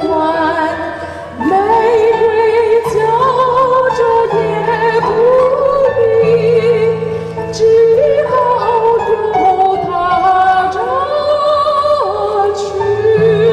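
Woman singing a slow melody into a microphone, holding long notes with a wide vibrato, over amplified accompaniment with sustained low notes.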